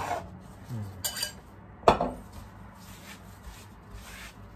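Kitchen knife handled on a plastic cutting board: a light clink about a second in, then one sharp loud clack as the knife is set down, followed by faint rubbing as the board is wiped with a paper towel.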